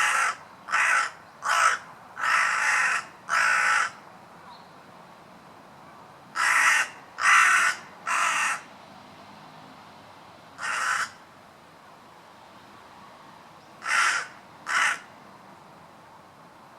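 Crow cawing: about a dozen caws, each under a second, in bunches of five, then three, then one, then two, with pauses of a few seconds between the bunches.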